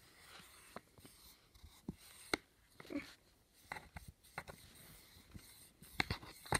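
Faint rubbing of a dry-erase marker's eraser end across a plastic board, wiping off marker writing, with scattered light clicks.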